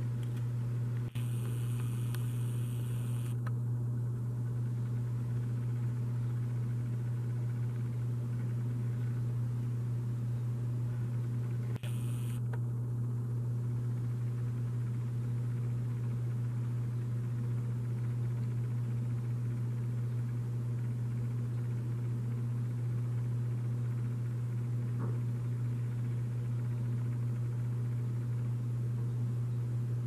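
A steady low hum, unchanging in pitch and level, with two short patches of faint hiss, one about a second in and one about twelve seconds in.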